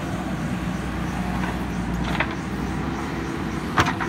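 JCB 3DX backhoe loader's diesel engine running steadily under digging work, with two short knocks from the backhoe bucket, the louder one near the end.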